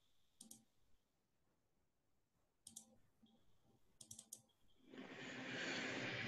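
Faint computer mouse clicks in small groups: one about half a second in, another near three seconds, and a quick run of clicks just after four seconds. Near the end a steady rushing noise comes up and stays.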